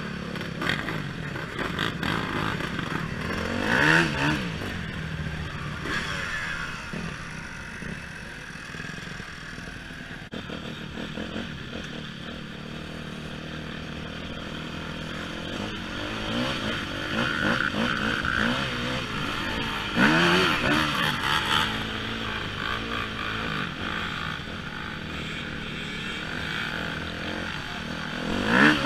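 Dirt bike engine running under load through deep mud, heard from on the bike, the revs climbing sharply about four seconds in, again around twenty seconds in, and near the end.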